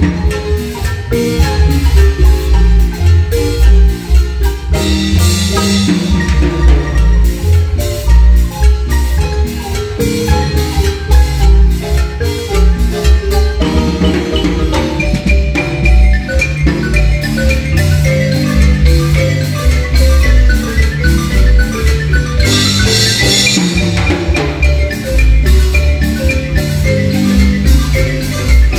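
Guatemalan marimba ensemble playing a tune in the marimba pura style: many mallet notes ring out over a steady, pulsing bass line. Twice a short burst of high hiss rises over the music.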